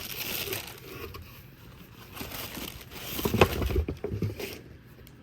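Rustling and crinkling of things being handled and moved about, with a louder run of knocks and rustles a little past the middle.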